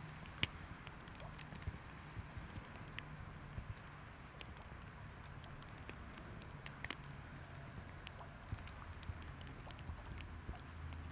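Low, steady hum from parked electric locomotives, with scattered faint ticks of heavy wet snow falling.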